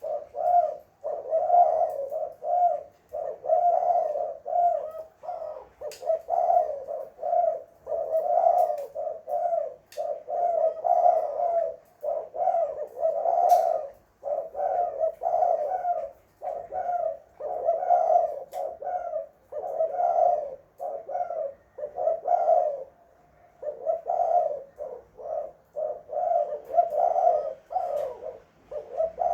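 Spotted dove (tekukur) cooing over and over: low coos in phrases of a second or two, one after another with short gaps between.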